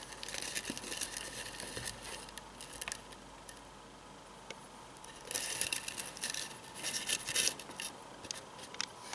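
Eastern Hercules beetles' clawed feet scratching and scrabbling as they walk, a crackly scratching in two spells, the second and louder one starting about five seconds in.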